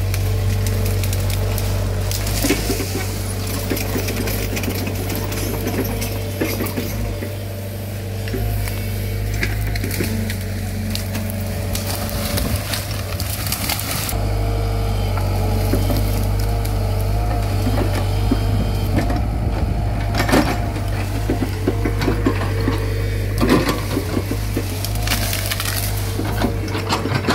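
Komatsu PC75 excavator's diesel engine running steadily while its bucket breaks and crushes branches and brush, giving many sharp cracks and snaps of splintering wood.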